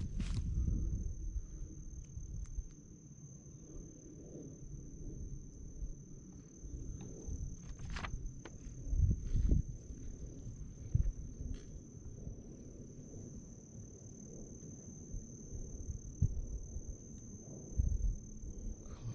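Insects trilling steadily at one high pitch, over low rumble and a few knocks on the microphone.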